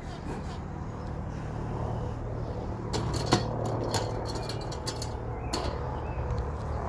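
A run of light clicks and small knocks about three to five seconds in, as of hands or tools handling an open wooden beehive, over a steady low hum.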